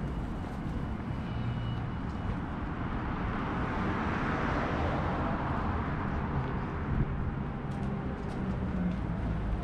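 Street traffic: a motor vehicle passes by, its tyre and engine noise swelling to a peak about halfway through and fading again, over a steady low rumble.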